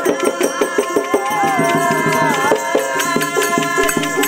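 Oggu katha folk music: a male voice singing over quick, even drum and percussion strokes, settling into a long held note about halfway through.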